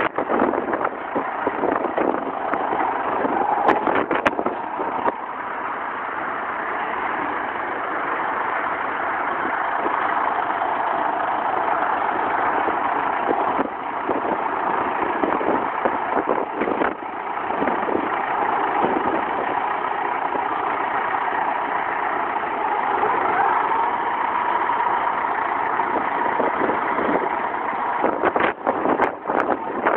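John Deere tractor's diesel engine running steadily as the tractor drives and works its front loader carrying a straw bale, with a few sharp knocks.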